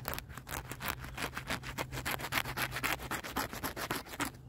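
Leather work glove rubbing against a thorny wild rose stem close to the microphone, a quick run of scratchy rubbing strokes, several a second.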